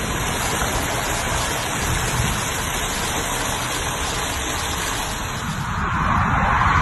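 Heavy rain falling in a steady hiss, getting a little louder near the end.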